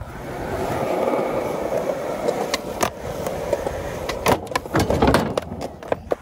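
Skateboard wheels rolling on concrete, a steady rumble that builds in the first second, with a few sharp clacks of the board. About four seconds in comes a cluster of loud clacks and thuds as the skater clips a bench and the board and his body slam onto the concrete.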